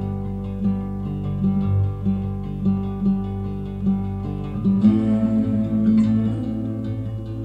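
Acoustic guitar playing a repeating plucked figure in an instrumental passage of a song, with fuller strummed chords coming in about five seconds in. It is heard through hi-fi loudspeakers and picked up by microphones in the room.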